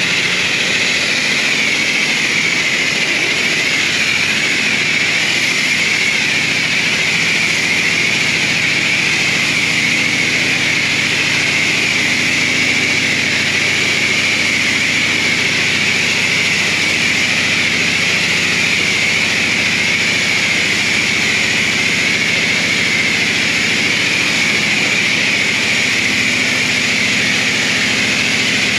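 High-pressure water spray from a car wash bay wand running without a break: a loud, even hiss with a faint low pump hum beneath it.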